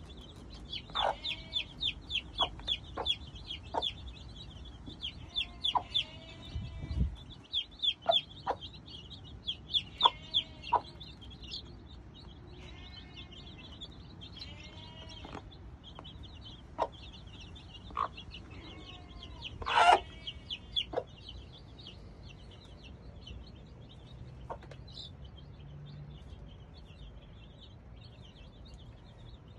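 Mother hen clucking in short, repeated notes while her young chicks peep constantly in high chirps. The clucks come thick in the first ten seconds, thin out, and return briefly around twenty seconds in with one louder call.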